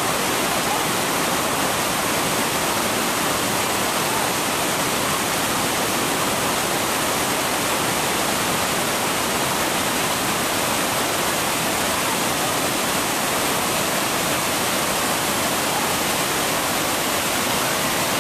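The Devil's Throat cascades of Iguazu Falls: a steady, unbroken rush of falling water, an even noise across the whole range with no change in level.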